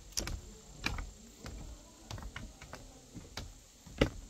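Footsteps: a string of irregular clicks and knocks, the loudest one about four seconds in.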